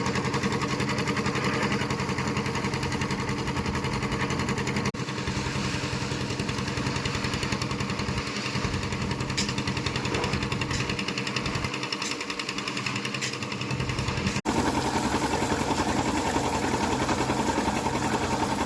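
Engine of a concrete mixer running steadily, with a fast, even pulsing hum. The sound changes abruptly twice, about five seconds in and again about two-thirds of the way through.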